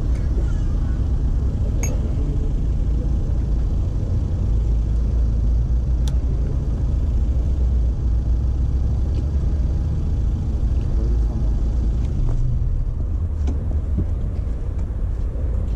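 Volkswagen Passat estate idling close by, a steady low rumble.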